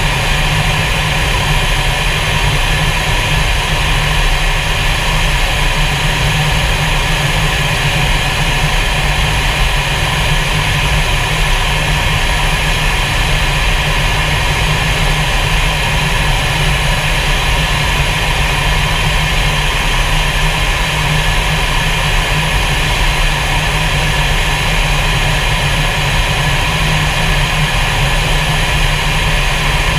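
Fighter jet's engine and rushing air heard inside the cockpit in flight: a loud, steady noise with a deep low rumble and a hiss on top, unchanging.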